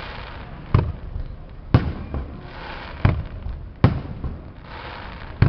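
Fireworks display: five sharp bangs of bursting shells, about a second apart, with a fainter hiss between them.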